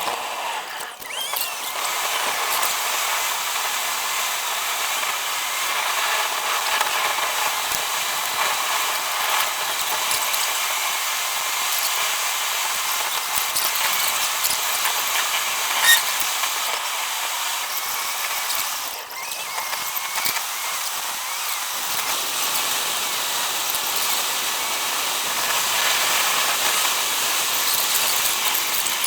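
Sped-up driving noise: car road and engine sound raised into a steady high hiss and whine, with a single sharp click about halfway through.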